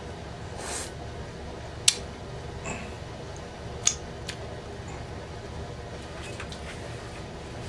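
Close-up eating sounds from chewing chicken wings and licking sauce off fingers: chewing with sharp wet lip and finger smacks, the loudest about two seconds in and again about four seconds in.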